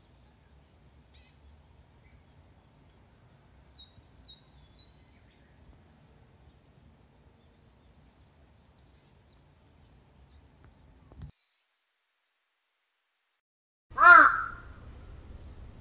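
Small songbirds chirping and twittering over a faint low rumble, which cuts off about eleven seconds in. Near the end a crow caws once, loudly.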